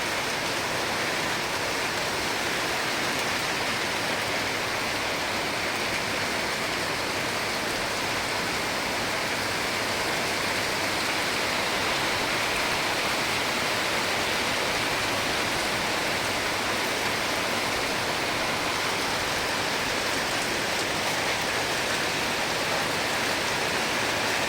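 Rain pouring down in a steady, unbroken hiss during a storm with strong wind.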